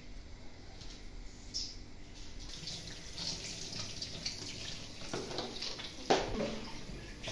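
Kitchen tap running into a sink while produce is rubbed and washed under the stream. A sharp knock about six seconds in.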